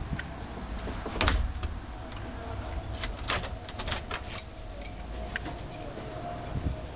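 Knocks and clicks of a door being opened and passed through, heard from a helmet-mounted camera, with a loud thump about a second in and a quick run of clicks around three to four seconds in over a low rumble of handling noise.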